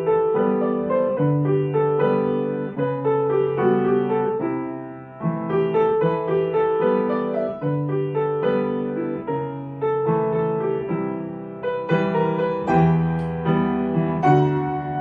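Gentle piano music, a steady run of sustained notes and chords.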